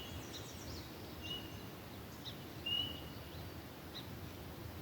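Forest songbirds calling after rain: several short, high, flat whistled notes and a few brief chips at irregular intervals, over a low, even background hiss.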